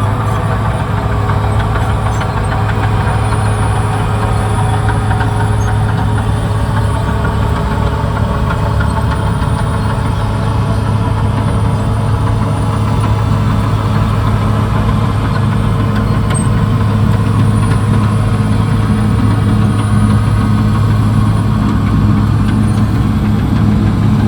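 Diesel engine of a CAT D6R XL bulldozer running steadily at an even, unchanging pitch.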